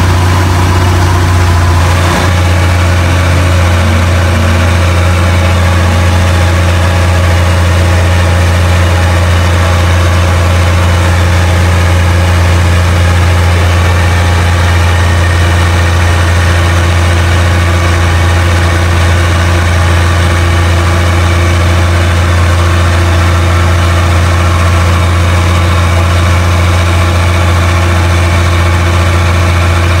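A boat's engine running steadily at speed, a loud low drone with no let-up; the note shifts slightly about two seconds in.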